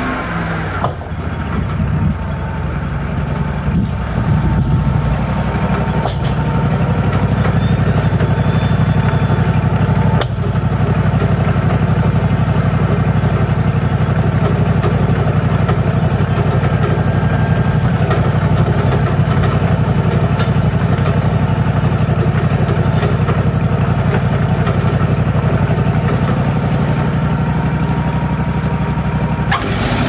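Engine of a Wood-Mizer LT40 hydraulic portable band sawmill running steadily, with a thin steady whine over it from about a second in until just before the end.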